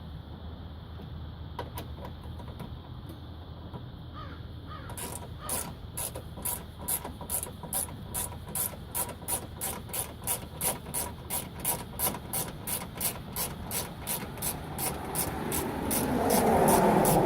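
Ratchet with a 4 mm Allen bit clicking steadily as it is worked back and forth, driving in a radiator mount bolt. The clicks start about five seconds in at roughly three a second. A louder rushing noise builds near the end.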